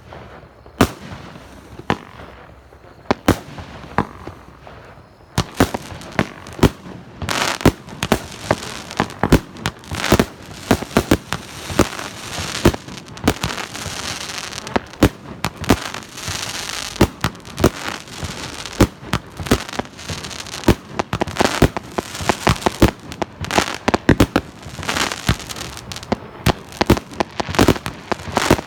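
100-shot double-shot fireworks battery (cake) firing: a few separate shots at first, then from about five seconds in a rapid, unbroken run of launches and bursts with crackling.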